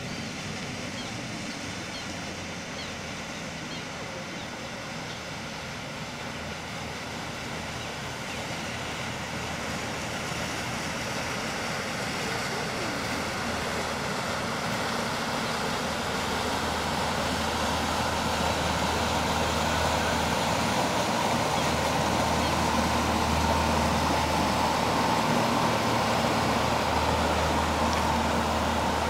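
Fishing boat's diesel engine running steadily as the boat approaches and comes alongside, its low drone and the rush of its bow wash growing steadily louder.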